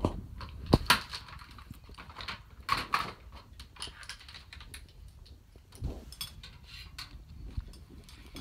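Scattered clicks, taps and light knocks from makeup items being handled close to the microphone, with louder knocks about a second in, near three seconds and near six seconds.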